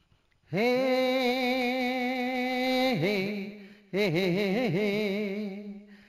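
A singer's wordless melodic opening, an alaap: about half a second in the voice scoops up into one long held note, then moves into wavering, ornamented turns. It breaks off just before four seconds and starts a second ornamented phrase.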